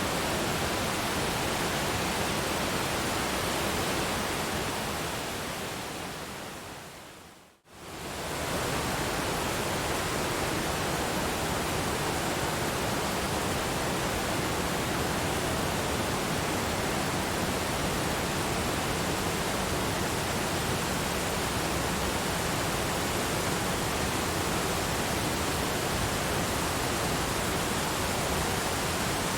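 Waterfall rushing steadily. The sound fades down over a few seconds to silence about seven and a half seconds in, then swells back up within a second or so, the way a looped recording joins.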